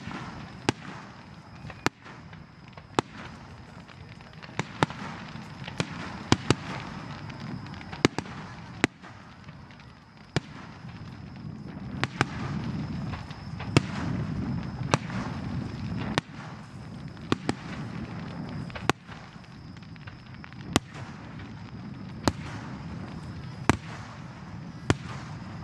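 Aerial fireworks display: a steady run of sharp bangs from shells bursting, about one a second, some followed by crackling, over a continuous low rumble.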